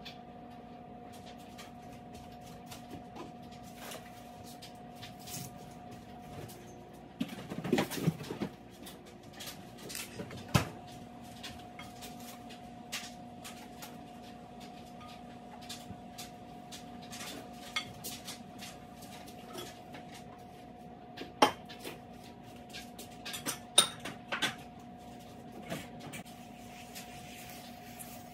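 Kitchen-cleaning handling noises: scattered clinks, knocks and clatters like dishes and cupboard doors being moved, busiest about eight seconds in, with sharp knocks around ten, twenty-one and twenty-four seconds. A steady hum runs underneath.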